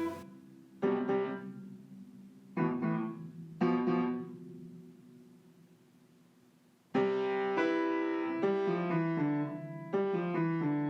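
Background piano music: a few soft chords that ring and fade, a pause of about two seconds, then a livelier run of notes near the end.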